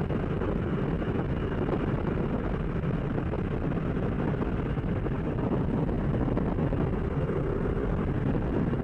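Steady engine and propeller noise of a small single-engine plane, mixed with air rushing past the open jump door, heard from inside the cabin in flight.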